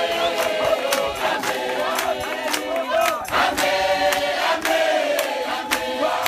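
A large group of men, women and children singing an old-time hymn together unaccompanied, led by a man conducting with his arms, with sharp beats about twice a second, likely hand claps keeping time.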